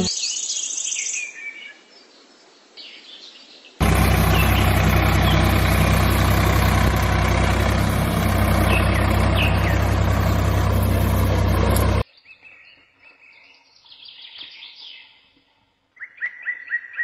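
Small birds chirping, with a loud, steady engine-like running noise and low hum that cuts in suddenly about four seconds in and cuts off just as suddenly about eight seconds later.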